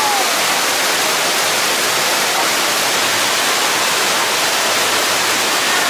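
Artificial waterfall on a rockwork aquarium display, water pouring steadily with an even, loud hiss.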